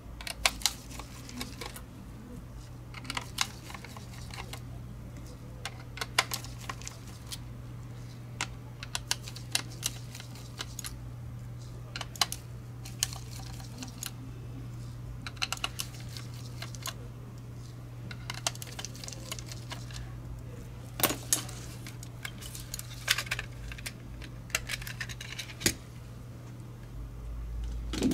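Irregular small clicks and taps of a screwdriver and gloved hands on the plastic shell of a Logitech G Pro Wireless mouse as it is unscrewed and opened, over a steady low hum.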